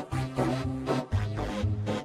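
Upbeat background music with a steady beat and a bass line.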